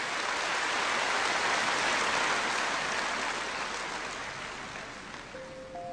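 A steady rushing noise like rain or running water swells and then slowly fades. Near the end, the first chiming, glockenspiel-like notes of the music begin.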